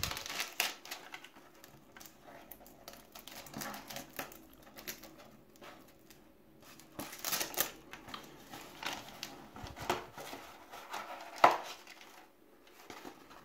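Cellophane wrapper crinkling and crackling as it is peeled off a cardboard tea box, in small irregular rustles. About eleven and a half seconds in, one sharp snap as the box's cardboard lid is pulled open.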